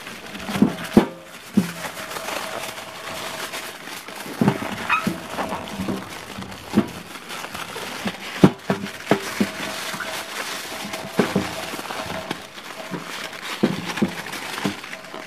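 Aluminium foil crinkling as it is folded and pressed around a leaf-wrapped fish parcel, with irregular sharp crackles.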